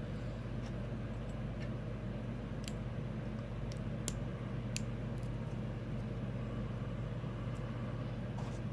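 Steady low background hum, with a few small sharp clicks about a third and halfway through: small brass lock pins and tools being handled while the lock's pin stack is reassembled.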